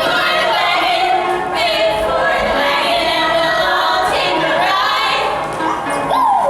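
Several women singing together over music in a live stage show, with a falling vocal slide near the end.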